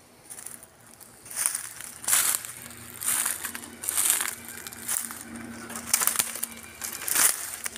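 Footsteps crunching through dry leaf litter and twigs, about one step a second.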